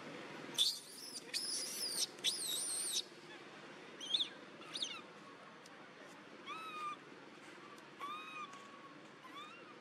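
Macaque calls: a shrill, wavering squeal from about half a second in that lasts a couple of seconds, then two short sweeping chirps, then a series of short arched coos.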